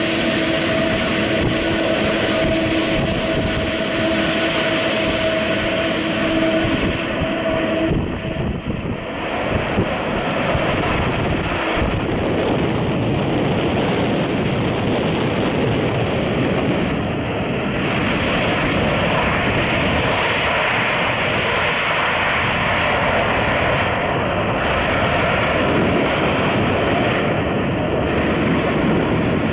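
Airbus A340 jet engines during landing and rollout: a loud, steady jet roar. A steady tone rides over it for the first several seconds and stops about eight seconds in.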